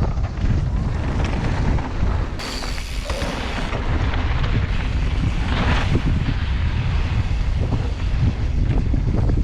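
Wind buffeting a camera microphone as a mountain bike is ridden along a dirt trail: a steady low rumble with scattered knocks from the bike over the ground.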